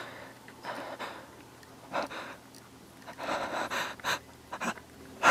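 A man breathing heavily in irregular gasps, short breaths about a second apart with a longer one past the middle.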